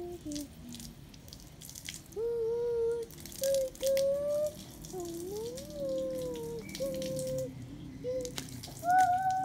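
Water dripping and splashing in scattered sharp drops. Over it, from about two seconds in, a series of clear pitched notes, each held about half a second to a second, some sliding up or down, the loudest near the end.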